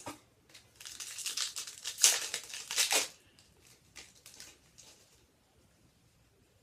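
A trading-card pack's plastic wrapper crinkling as it is torn open and handled, loudest about two seconds in, with a few softer rustles near the five-second mark.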